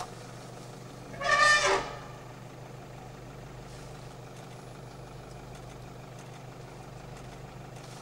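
African bush elephant bull trumpeting once while charging, a loud blast of under a second about a second in. Under it a vehicle engine idles steadily.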